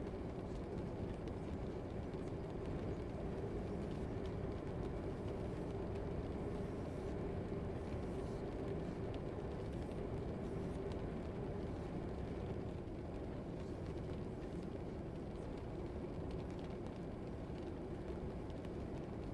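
Steady low ambient rumble with a faint steady hum, from a background ambience track; it never changes.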